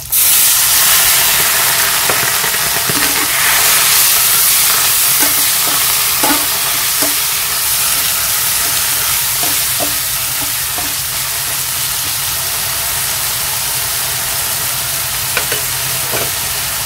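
Vinegar poured into a hot, oily pan of fried dried fish, bursting into a loud sizzle the moment it goes in, then a steady frying hiss. A spatula stirs the fish, its scraping and light clicks against the metal pan heard now and then.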